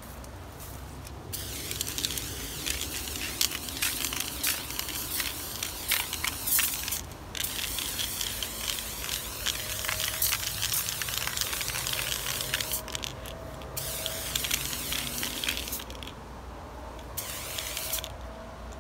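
Aerosol spray-paint can hissing in several long bursts as paint is laid on a wall, with short breaks between strokes.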